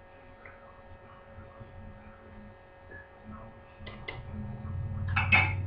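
Quiet kitchen with a steady electrical hum, then light knocks and clatter of kitchen things being handled on the counter: two short knocks about four seconds in, a low rumble building, and a few sharper clatters near the end.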